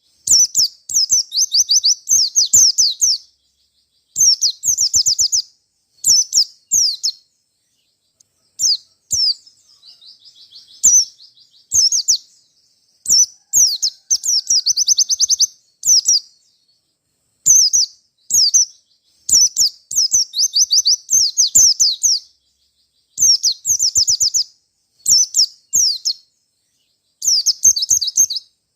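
A white-eye (pleci) singing fast, high, chattering phrases, each a quick run of downward-slurred notes, repeated again and again with short breaks between them. About ten seconds in, a softer twittering stretch comes between the louder phrases.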